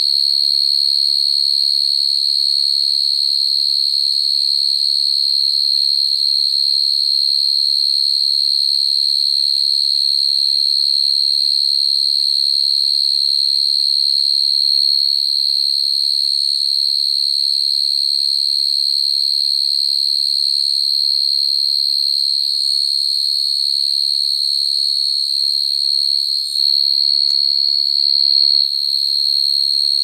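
Male field crickets singing their calling song to attract females: a steady, high-pitched trill that never breaks.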